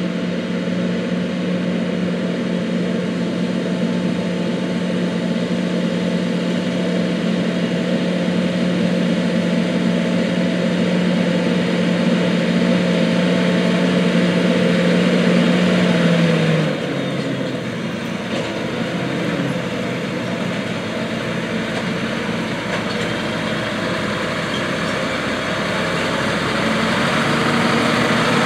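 Heavy harvest machinery running while chopping corn silage: John Deere 8600 self-propelled forage harvesters with tractors pulling forage wagons. A strong steady hum drops in pitch and fades about two-thirds of the way through, then the machine noise builds again near the end.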